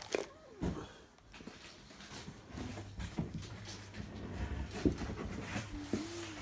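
Plastic vacuum-cleaner parts being handled and set down: scattered light knocks and clicks over a low steady hum. Near the end there is one short tone that rises and then falls.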